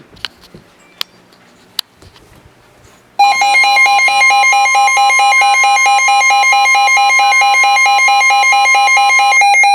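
Emergency Alert System attention tone: a loud electronic alert tone of several steady pitches, starting suddenly about three seconds in, after a few faint clicks. It signals that a warning broadcast is about to be read.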